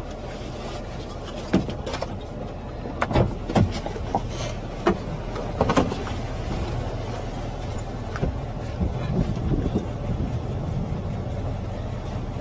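Steady road and engine noise inside a moving car, picked up by a dash cam, with several sharp knocks in the first half.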